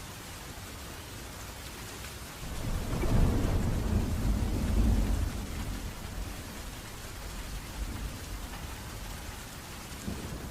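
Steady rain falling, with a roll of thunder that builds about two and a half seconds in, rumbles loudest for a couple of seconds, then fades.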